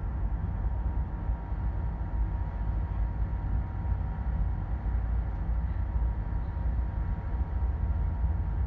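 Steady low rumble of a Caltrain passenger car rolling slowly over the tracks, heard from inside the car, with a faint steady hum above it.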